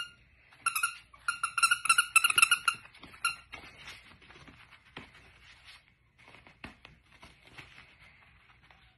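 A squeaky dog toy squeaked in quick bursts, all on the same pitch: one squeak at the start, then a rapid run of squeaks for about two and a half seconds. After that come soft scuffling and light clicks of a puppy playing on a floor mat.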